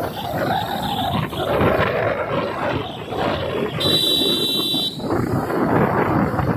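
Road traffic noise heard while riding through city streets. Engines and rushing air run throughout, and a vehicle horn sounds for about a second just past the middle.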